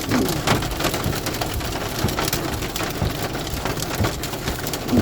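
Hail and rain pelting a car's roof and glass, heard from inside the cabin: a dense, irregular clatter of hits.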